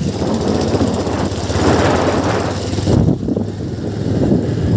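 Motorcycle running on the move, a steady engine and road noise, with a hissing rush over the top that drops away about three seconds in.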